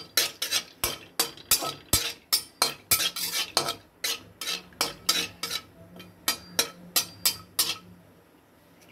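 Metal spatula scraping and clinking against an iron kadai as cashews are stirred in ghee, in quick strokes about three a second that stop about a second before the end.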